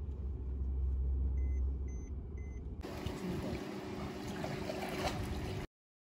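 A low, steady rumble with three short electronic beeps about half a second apart, then a sudden cut to the steady trickle and splash of pool water, which stops abruptly near the end.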